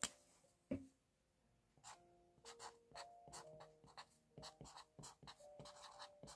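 Faint scratching of a felt-tip pen on paper, writing letters in many short strokes, after two sharp clicks in the first second.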